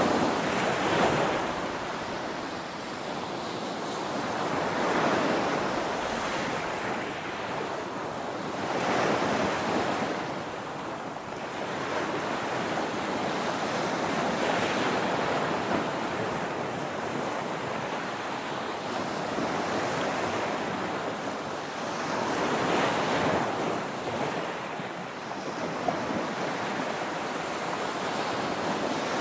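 Small ocean waves breaking and washing up a sandy beach, the surf swelling and easing every four to five seconds.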